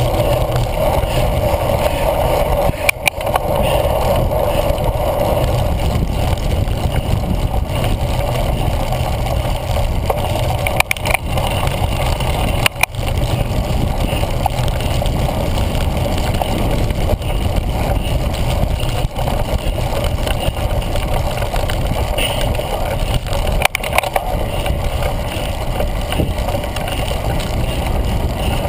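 Steady rumble of wind and bicycle vibration picked up by a handlebar-mounted camera in its housing as a cyclocross bike is ridden over pavement and grass. A few brief knocks and dropouts break it.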